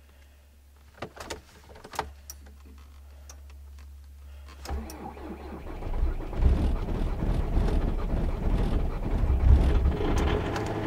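VW Caddy Life TDI diesel engine cold-starting at about −17 °C on a freshly charged battery. A few clicks come first, then the starter cranks from about five seconds in. The engine catches about a second later and keeps running.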